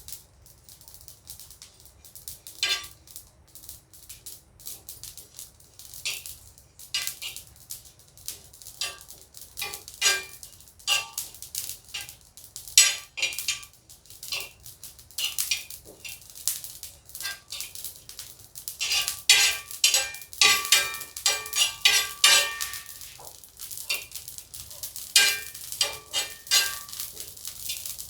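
Ajwain (carom seeds) and garlic cloves dry-roasting on a hot tawa: irregular crackling and sharp pops, thickest in the second half, with a spatula scraping and clinking on the pan. The popping is the sign that the ajwain is roasting through.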